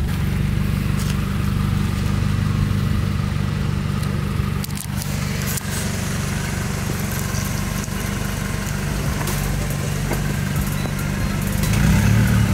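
Scion tC's four-cylinder engine running at low speed as the car creeps along, a steady low drone that grows a little louder near the end.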